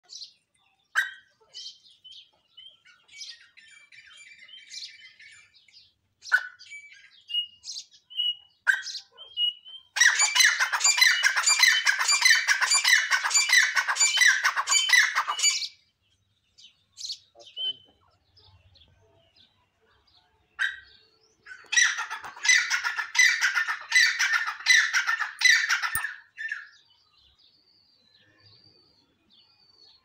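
Grey francolin calling: scattered short chirps, then two loud runs of rapidly repeated call notes, one about ten seconds in lasting some six seconds and another starting about twenty-two seconds in lasting some four seconds.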